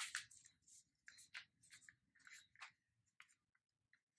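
Faint, irregular rustles and crinkles of a paper sheet being folded and creased by hand into a paper aeroplane, the loudest right at the start.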